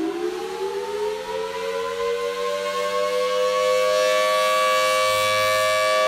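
Federal Signal Thunderbolt electromechanical siren winding up. Its pitch rises steeply, then levels off into a steady wail of two close tones that grows louder as the rotating horn swings round.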